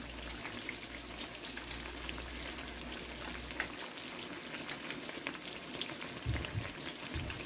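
Battered eggplant slices (beguni) deep-frying in hot oil: a steady sizzle with many fine crackles as the pieces puff up.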